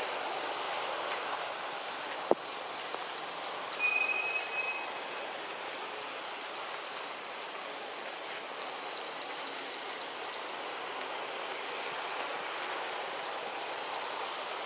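Steady forest background hiss with no voices, broken by a sharp click a little over two seconds in and a brief high-pitched call about four seconds in.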